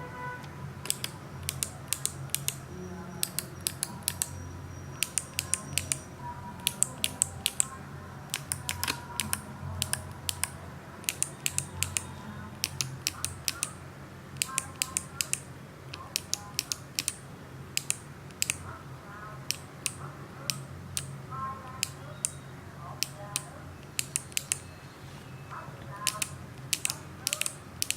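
Kailh BOX clicky mechanical keyboard switches with GMK keycaps being pressed one after another, each giving a crisp, bright click. The clicks come in quick clusters throughout.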